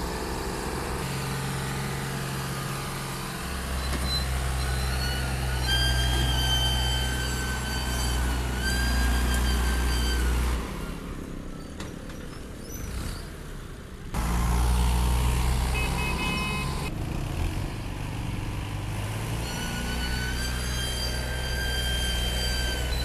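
Ghazi 65 hp tractor's diesel engine running hard under load, pulling a trolley piled with sugarcane. The low engine drone drops away for a few seconds about halfway through, and a steady high tone sounds over it twice.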